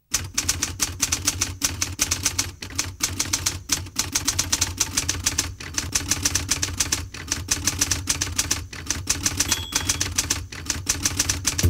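Typewriter keys clacking in a fast, continuous run of strokes over a low hum, with a short ringing tone near the end.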